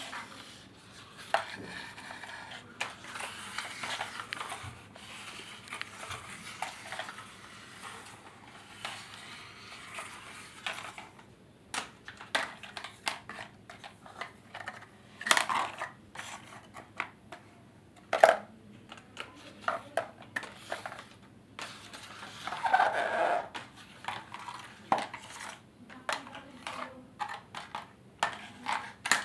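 Irregular clatter and knocking of hard objects being handled, with sharp clicks scattered throughout and a few louder knocks.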